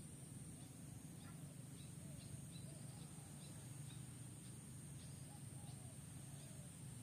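Faint outdoor ambience: scattered short chirps and wavering calls of distant animals over a steady low hum and an even high hiss.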